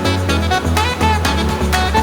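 Background music in a swing-jazz style, with a bass line and a sliding lead melody.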